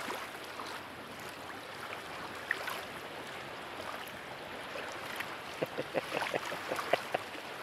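Steady rush of shallow creek water, with a run of short splashes near the end as someone wades through it.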